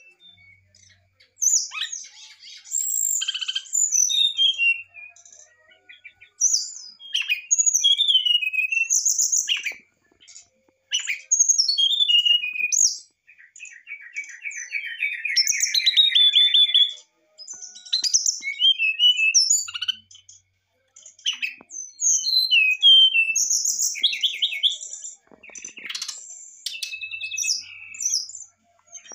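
Brown-chested jungle flycatcher singing a varied song in short phrases of clear whistles and quick chattering notes, with brief pauses between them. A longer, rapid trill sits lower in pitch about fourteen seconds in.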